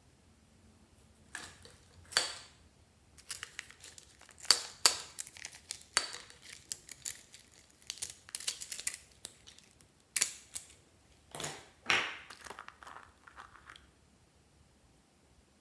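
Small plastic toy containers handled and opened by hand: an irregular run of plastic clicks, taps and crinkly rustles, which stops near the end.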